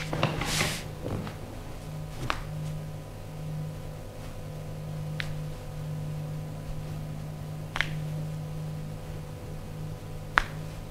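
Hands-on massage sounds: a brief rustle at the start, then single sharp snaps every two to three seconds, the last the loudest, over a steady low hum.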